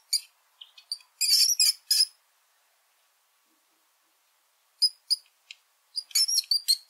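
Mouse squeaking: short, high-pitched squeaks in quick clusters. There is a dense run about a second in, a few separate squeaks around five seconds, and a rapid string of them near the end.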